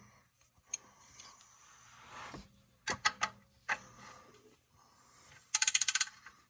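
Scattered metal clicks and knocks as the oil drain plug and its washer are handled, then a quick run of about a dozen ratcheting clicks near the end as a wrench turns the drain plug back in.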